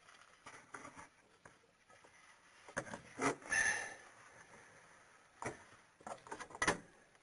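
Wrench and metal engine parts clinking and knocking a few times, with a short scraping rub about three and a half seconds in, as the cooling fan is threaded onto its shaft.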